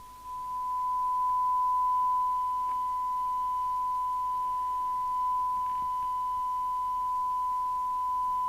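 Steady 1 kHz test tone from the FM CB radio's loudspeaker: the signal generator's modulation demodulated by the receiver during alignment. It comes in just after the start, swells over about a second, then holds steady.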